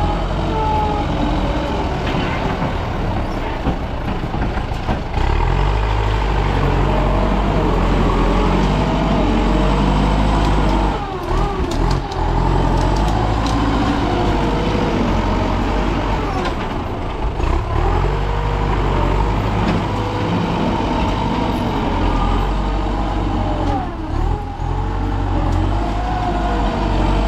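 Excavator's diesel engine running under working load, with pitched tones that waver up and down, and a few brief dips in level.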